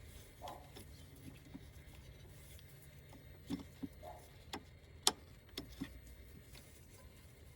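Scattered light clicks and knocks over a low steady hum, with the sharpest click about five seconds in.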